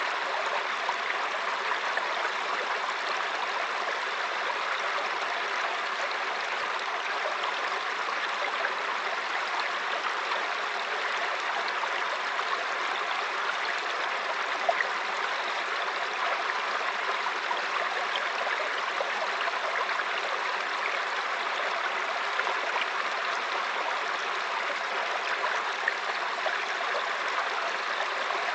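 Small mountain stream flowing and splashing over rocks, a steady babbling rush of water.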